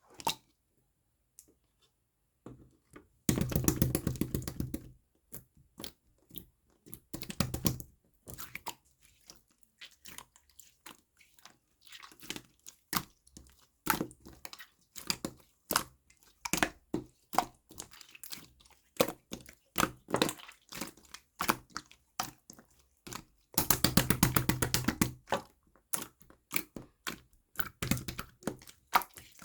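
Glitter-filled jelly slime being squished and poked by hand, making sticky clicks and pops. It breaks into dense runs of rapid crackling twice, a few seconds in and again near the end.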